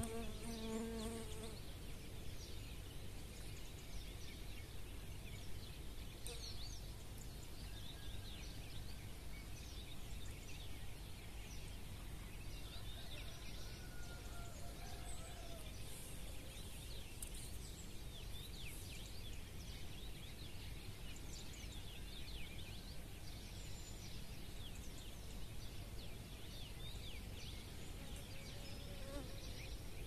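Songbirds singing in a dawn chorus: many short, high chirps and trills scattered throughout, over a steady low background noise. A brief buzz right at the start is the loudest sound.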